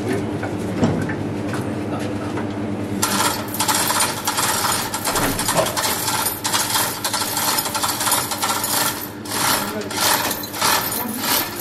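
Manual chain hoist lowering a truck gearbox: rapid metallic clicking and chain rattle that starts about three seconds in and runs on with short breaks.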